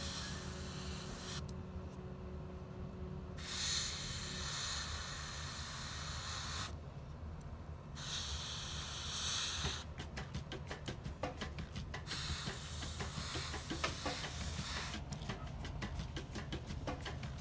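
Airbrush spraying acrylic paint in short hissing bursts, about four, with pauses between, and rapid clicking in places.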